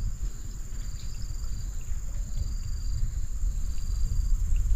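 Wind rumbling on the microphone, over a steady high-pitched drone of insects. A second, shorter insect call comes and goes about once a second.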